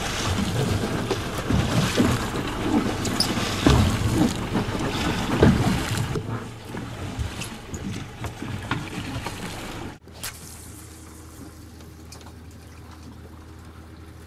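Water sloshing and splashing around a boat, with low thumps and a rushing noise that is loudest in the first half and then eases off. After an abrupt cut a steady low hum takes over.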